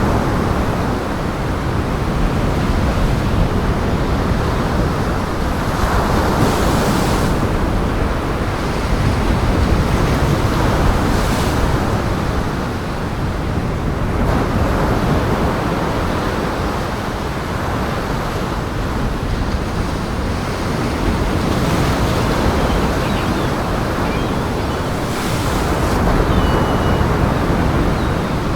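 Waves breaking in strong wind: a dense, steady rush that swells and eases every few seconds.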